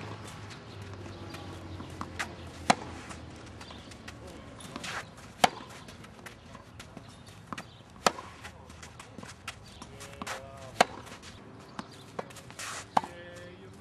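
Tennis balls struck by racquets during play: a sharp pop of the strings about every two and a half to three seconds, with fainter hits and ball bounces in between.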